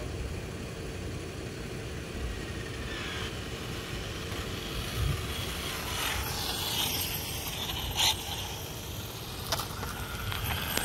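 Arrma Limitless RC speed-run car's brushless electric motor whining faintly as the car is driven slowly back in, its pitch dipping and rising from about halfway through, over a steady low rumble. A sharp click sounds about three-quarters of the way in, and a few lighter clicks come near the end.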